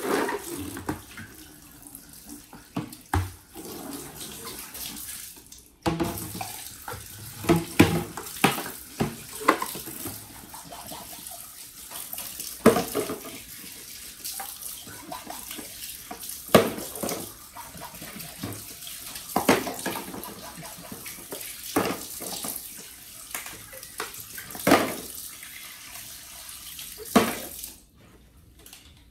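Tap water running while a bottle is washed in a sink, with repeated sharp knocks and clinks through it. The running water stops near the end.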